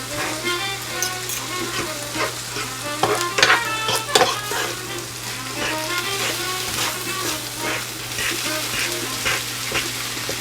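Chicken, spinach and onion stir-fry sizzling in a frying pan while it is stirred, the utensil scraping and knocking against the pan, most busily about three to four seconds in. The food is nearly cooked through.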